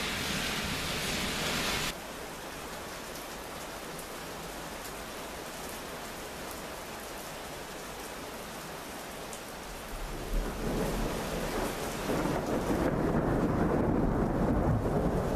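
Thunderstorm rain hissing heavily, dropping abruptly to a lighter, steady hiss about two seconds in. From about ten seconds a deep rumbling sets in and grows loud near the end.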